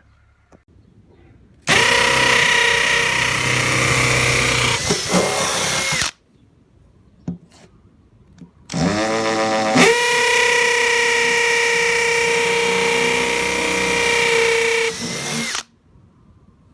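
Power drill boring drainage holes in a blue plastic planting barrel: two long runs at steady speed, the second spinning up with a rising whine before it settles.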